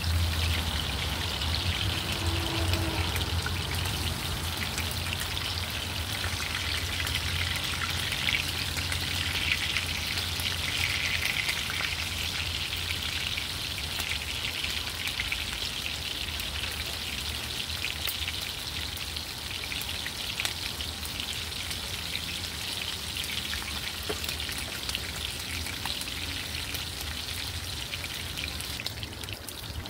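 Fish frying in shallow hot oil in a cast iron skillet: a steady sizzle with constant small pops and crackles of spattering oil, over a low steady hum.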